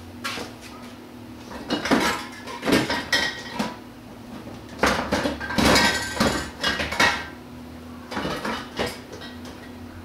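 Metal objects clinking and clattering as they are handled and moved about, in irregular bursts of sharp knocks and clinks, loudest in two spells in the middle, over a steady low hum.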